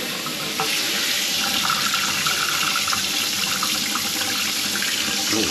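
Kitchen faucet running water into the sink, the flow turning up about half a second in and then running steadily.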